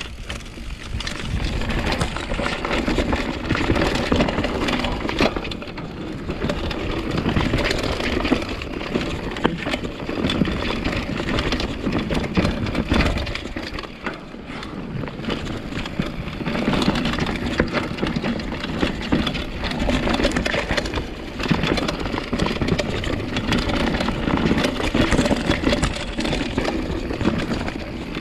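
Full-suspension mountain bike ridden fast down a dirt forest trail: knobby tyres rolling and crunching over dirt and roots, with many quick rattles and knocks from the bike, in loudness surges every few seconds.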